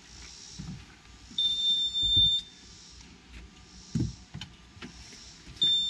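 Farmgate wireless motion-detector alarm going off, set off by motion: a steady high beep about a second long, twice, about four seconds apart. A low thump comes between the beeps.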